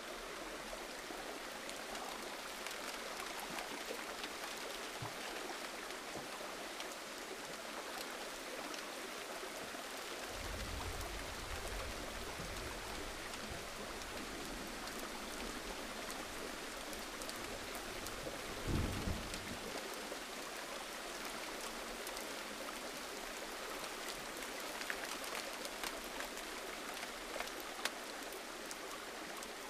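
Gentle rain falling steadily, a continuous even hiss with scattered sharper drip ticks. A low rumble comes in for a few seconds before the middle, and a brief low thump follows later.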